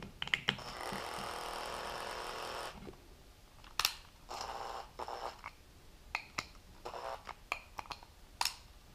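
Small cordless electric screwdriver running in short spurts to back screws out of a plywood jig: one run of about two and a half seconds, then a shorter one about four seconds in. Light clicks and taps of the bit and the wood come in between.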